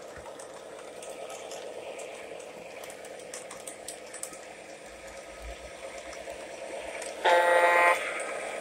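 Lionel O gauge model trains running on the layout: a steady motor whir and wheel rumble. About seven seconds in comes a short, loud horn blast, most likely from the sound system of the Santa Fe warbonnet diesel locomotive.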